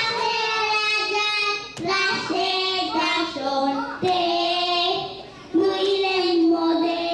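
Young girls singing into microphones: phrases of held, pitched notes, with short breaks between phrases about two seconds, four seconds and five and a half seconds in.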